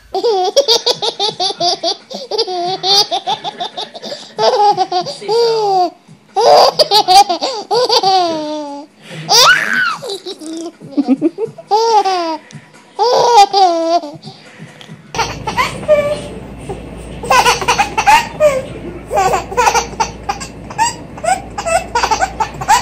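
Baby laughing in repeated bouts of high, bubbling laughter. About fifteen seconds in, a different baby giggles, with a low steady hum in the background.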